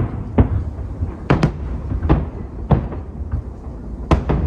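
Fireworks display: aerial shells bursting in a string of sharp bangs, about six or seven at irregular spacing, over a steady low rumble.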